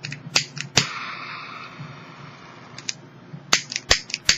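Piezo igniter of a Tri-Flame butane torch lighter clicking repeatedly, with a hiss of gas for about two seconds after the third click. The lighter is not catching, and the owner goes on to refill it with fuel.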